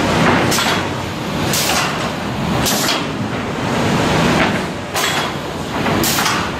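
Automatic plywood sanding machine and its conveyor running: a loud steady machine noise, with a short sharp swish recurring about once a second.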